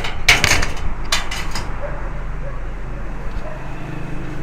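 Handling noises from parts of an opened LCD TV: a quick cluster of sharp clicks and rattles in the first second and a half, then a steady low hum.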